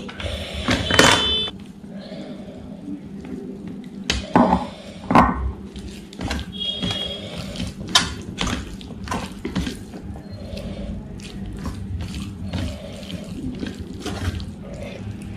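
Fingers mixing rice with curry gravy on a stainless steel plate: wet squishing and many small clicks, with a few louder knocks of hand against plate, and the steel rings briefly twice. A faint steady hum lies underneath.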